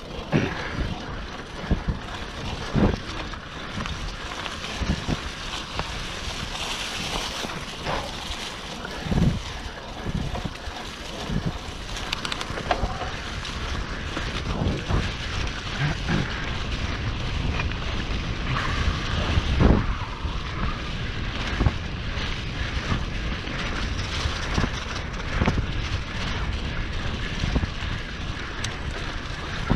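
Mountain bike riding over rough ground, with wind noise on the microphone and the bike rattling and knocking irregularly over bumps.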